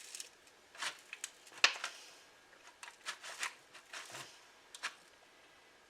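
Knife cutting through a frozen cream pie: a series of short scrapes and crunchy clicks as the blade works through the hard filling, the sharpest about one and a half seconds in.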